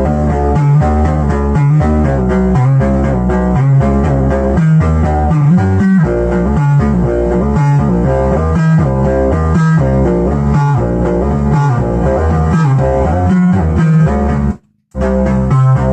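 Synthesizer music from a Behringer MS-1 and Pro-1, played through a Behringer Virtualizer Pro DSP2024P effects unit: a pulsing bass line under a busy pattern of fast repeated notes. The sound cuts out completely for a moment near the end, then resumes.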